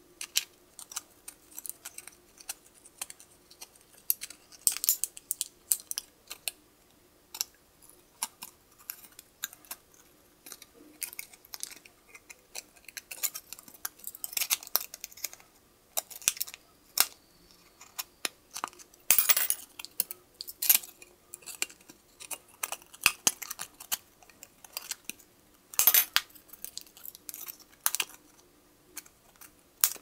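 Small Swiss Army knife scissors snipping through thin tin-can metal: an irregular run of sharp clicks and crisp cuts, with two longer, louder rasps, one about two-thirds of the way through and one near the end.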